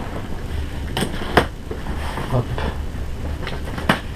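Cardboard shipping box being handled and turned over, with three sharp knocks against the cardboard and fingers scratching at the packing tape.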